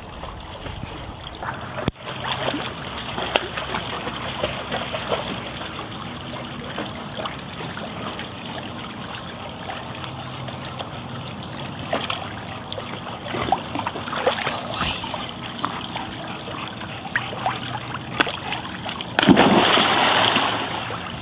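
Pool water splashing and sloshing as a golden retriever swims through it, with many small splashes throughout. Near the end comes a loud burst of splashing.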